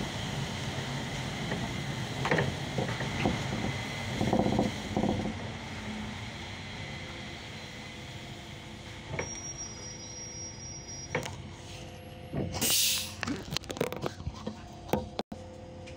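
Cabin sound of a Solaris Urbino 18 III articulated city bus on the move: a steady rumble of engine and road with scattered rattles and clicks. About thirteen seconds in comes a short hiss of compressed air.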